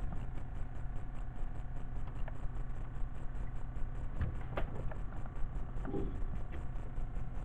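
Steady low motor rumble of a boat, with a faint, evenly pulsing hiss, and a few light knocks and clicks as a fishing rod is lifted from its holder and swept up to set the hook.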